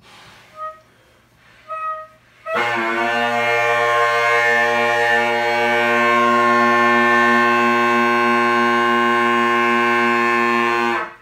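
3D-printed Great Highland bagpipe drones sounding. Two brief chirps come first, then a steady, loud drone chord starts about two and a half seconds in and cuts off near the end. The drones are very out of tune.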